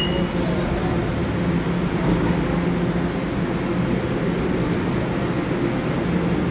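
New York City subway train of R211 cars standing at the platform, its air conditioning and onboard equipment humming steadily with a low, even drone.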